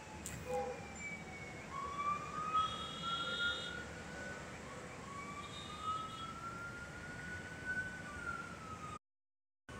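A siren wailing in slow rising and falling sweeps over the steady hum of city traffic. The sound cuts out near the end.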